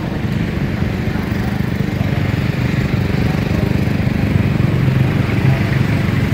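Motorbike taxi's small engine running steadily at low speed, heard from on the bike, with a constant low drone.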